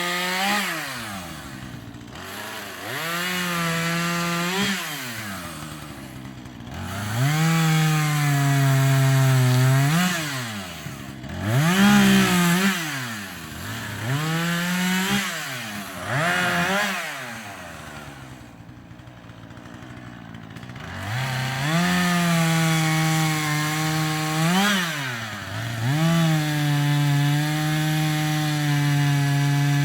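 Husqvarna 440e two-stroke chainsaw revved up again and again through a series of cuts in wood, about seven in all. Each time the pitch climbs, holds a little lower under the load of the cut, then drops back to idle, with a few seconds of idling past the middle.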